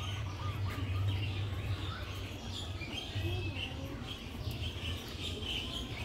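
Several birds chirping and twittering in short scattered calls over a low steady rumble.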